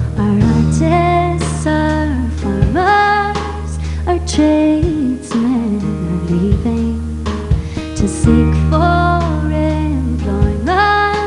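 Female voice singing a slow Irish folk ballad, the melody sliding between held notes, over a sustained low bass and band accompaniment.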